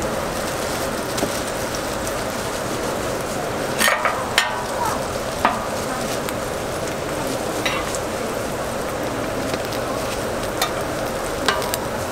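Burger patties sizzling steadily on a flat-top griddle, with a few short sharp clicks and knocks scattered through.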